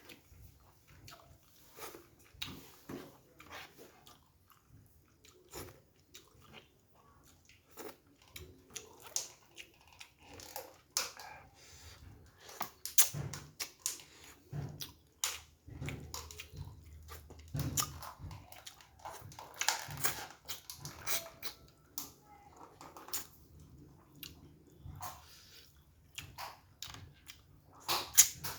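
A person eating close to the microphone: chewing, lip-smacking and wet mouth clicks in an irregular run, busier through the middle and again near the end.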